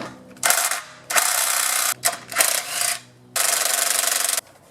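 Small engine's recoil starter being worked by its pull cord in four pulls, two short and two long steady ones of about a second each, each a rapid ratcheting whir of the pulley and pawls.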